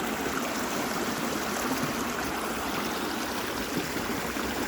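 Creek water rushing steadily over a low falls at an old dam: an even, unchanging wash of flowing water.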